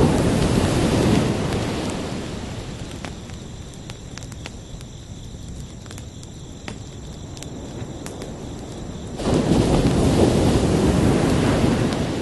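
Ocean waves breaking on a shore: one wave washes out and fades over the first couple of seconds, and another crashes in suddenly about nine seconds in. Crickets chirp steadily and faintly underneath.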